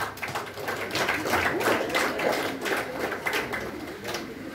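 Scattered clapping from a small audience, strongest in the middle and thinning out near the end.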